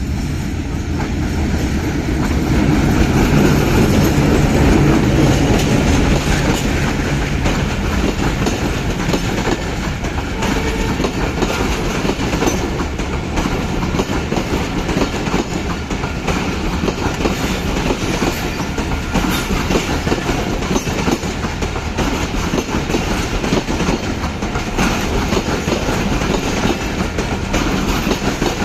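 Bangladesh Railway intercity passenger train pulling out of a station, its carriages rolling past with a continuous clickety-clack of wheels over the rail joints. It is loudest with a low hum about three to six seconds in.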